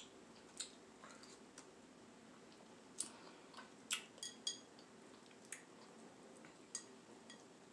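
Faint, scattered clinks and taps of a fork against a small glass fruit bowl, several in all, a few of them in the middle ringing briefly with a glassy tone.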